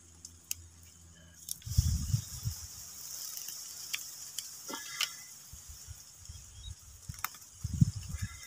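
Scattered light clicks and rattles of a rubber-powered spear gun being handled and reloaded, with two dull bumps, about two seconds in and near the end.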